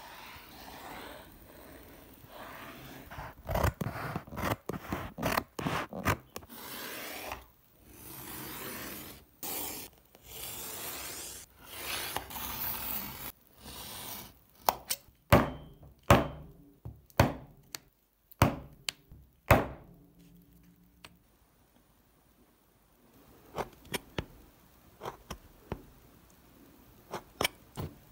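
Leather being worked by hand with a scribe and a utility knife: light scratching, then a knife drawn through leather along a metal ruler in several long scrapes of about a second each, followed by a run of sharp clicks and, near the end, fainter clicks.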